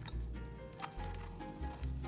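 Soft background music with held tones over a pulsing bass.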